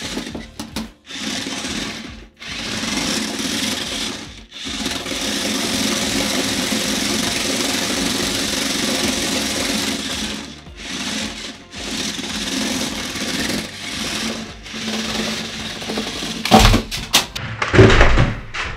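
Electric drive motors of a toy RC rock crawler with roller wheels whirring in bursts, starting and stopping as the car is driven, each wheel with its own motor. Two loud knocks near the end.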